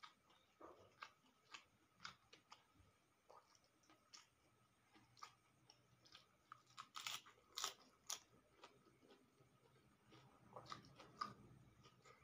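A person chewing a mouthful and crunching raw cabbage, with scattered short crisp crunches and a run of louder crunches about seven to eight seconds in.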